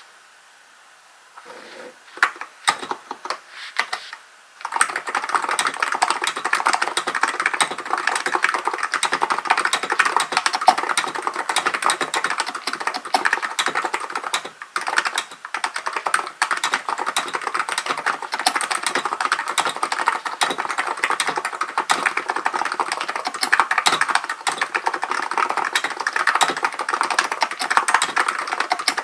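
Typing on a Hansung GK898B electrostatic capacitive (non-contact, Topre-style) keyboard. A few scattered keystrokes come first, then fast continuous typing from about five seconds in, with one brief pause midway.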